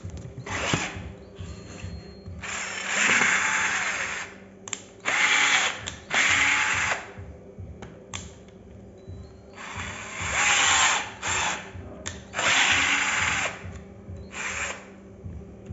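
SmartBuy 12 V cordless drill-driver driving a wood screw into a wooden plank in about five short runs. Each run whirs up, holds and winds down, with pauses between the trigger pulls.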